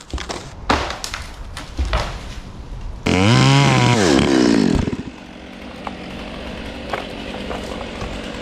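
A few sharp knocks and cracks, then about three seconds in a chainsaw is revved hard for under two seconds, its pitch rising and falling, before it drops back to a steady idle.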